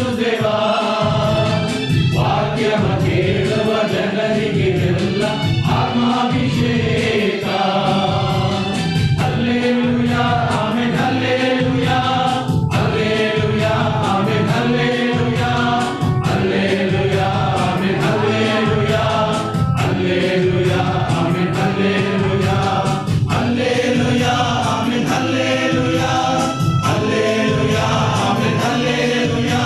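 Men's choir singing a hymn together, phrase after phrase with brief breaks for breath every few seconds.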